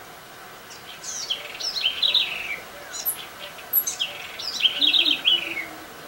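A songbird singing twice, each song a quick run of high chirping notes that falls in pitch and ends in a short trill.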